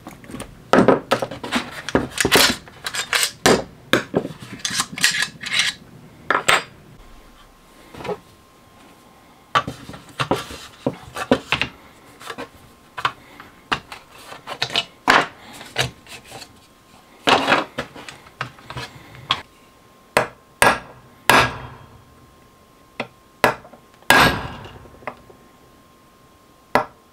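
Irregular sharp clicks and clacks of tools and of the plastic and metal parts of an AR-15 upper on a workbench as it is stripped and its handguard pulled off. Near the end a hammer strikes a punch to start the A2 front sight's taper pins. A faint steady high tone runs underneath.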